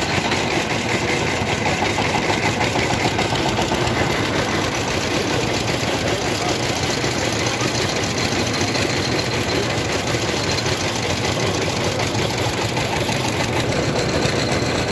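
Roadside sugarcane juice crusher driven by a small stationary engine, running steadily with a continuous mechanical clatter.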